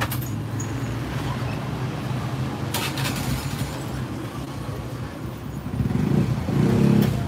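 Road traffic with motorcycle engines running close by, one growing louder near the end, and a short clatter about three seconds in.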